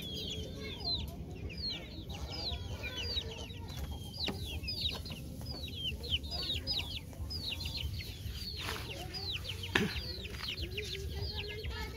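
Chicks peeping continuously: many short, high, falling peeps overlapping several times a second. A hen clucks lower near the end, and there are two knocks about nine to ten seconds in.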